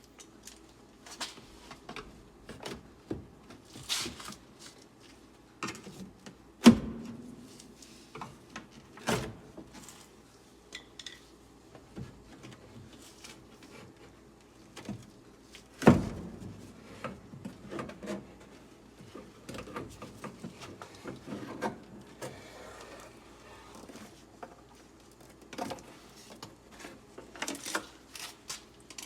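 Scattered clicks and knocks of hands working inside a car door, unplugging electrical connectors and clips from the window-mechanism frame, with two sharp loud knocks, one about seven seconds in and one about sixteen seconds in.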